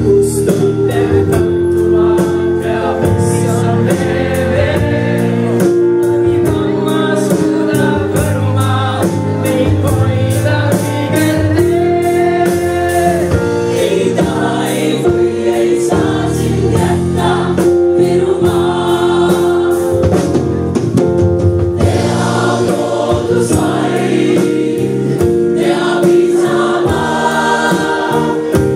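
A large mixed choir of young voices singing a song in parts.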